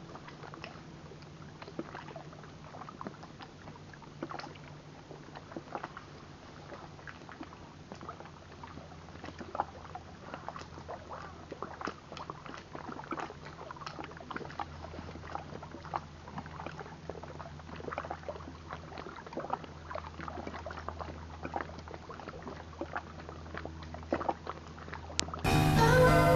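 Small waves lapping on a rocky lake shore: many small scattered splashes and ticks over a low steady hum. Music cuts in suddenly about a second before the end.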